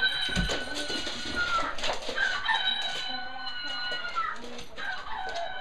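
A squeaky toy chicken squawking as a dog squeezes it in its mouth: three long, drawn-out squawks, each one to two seconds.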